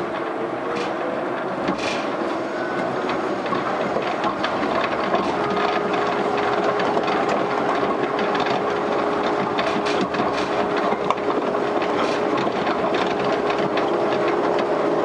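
Interior running noise of a Yukarigaoka Line 1000 series rubber-tyred people mover, heard from a non-powered trailer car. The tyres rumble and hiss steadily along the guideway with frequent light clicks. A steady whine sets in about five seconds in.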